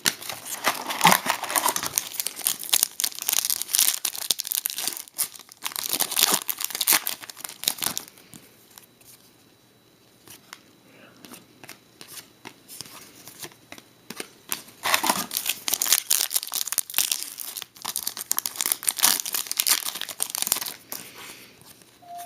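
Foil hockey card pack wrappers crinkling and tearing as packs are handled and ripped open, in two spells of dense crackling with a quieter pause between.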